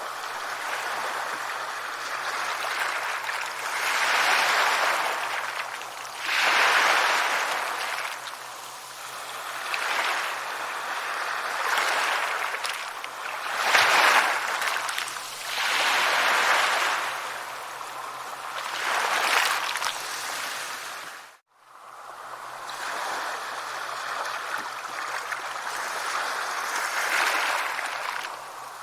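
Sea waves washing in on a shore, the surf swelling and falling back every few seconds. The sound cuts out for a moment about two-thirds of the way through, then resumes.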